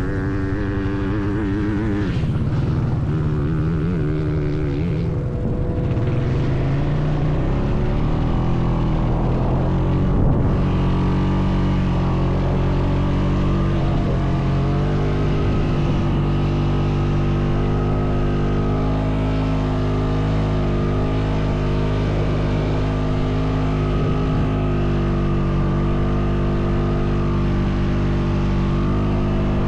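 Honda Foreman 520 ATV's single-cylinder engine running under load while towing another ATV, its pitch wavering over the first several seconds and then holding steady.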